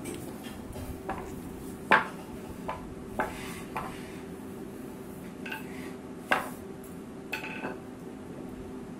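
Irregular knocks and clatter of a wooden rolling pin against a wooden board as a child rolls roti dough on a hard floor, the sharpest about two seconds in and just past six seconds, a couple with a short ring. A steady low hum runs underneath.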